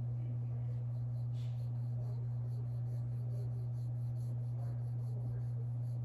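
Faint scratching and rubbing as permanent-makeup pigment is swatched, over a steady low electrical hum.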